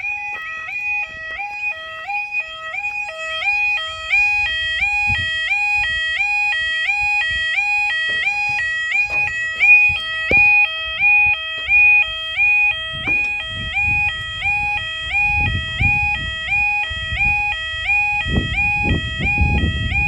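Level crossing yodel alarm sounding a rapid two-tone warble, about two cycles a second, warning road users that the barriers are about to come down for an approaching train. A low rumble builds under it in the last few seconds.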